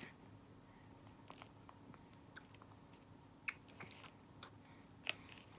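Near silence: quiet room tone with a faint steady hum and scattered small clicks and taps, a sharper one about five seconds in.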